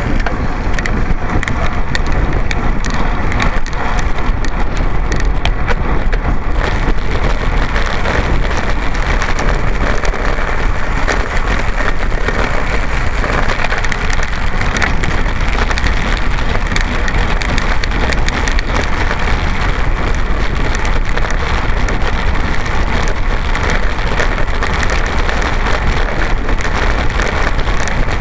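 Road bicycle rolling fast over cobblestones, heard through a bike-mounted camera: wind on the microphone and a dense, steady rattle of many small knocks from the shaking bike and camera.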